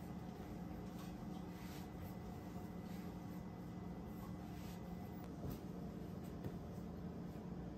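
Soft rustling and crinkling of thin buttered phyllo dough as it is rolled up by hand on a bamboo board and then scrunched together, over a steady low hum.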